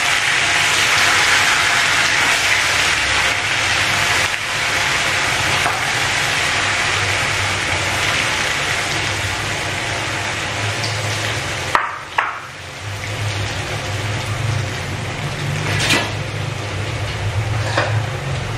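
Tempe bacem deep-frying in a wok of hot oil: a steady sizzling hiss that eases a little over time, with a low hum beneath. A few sharp clicks come in the second half.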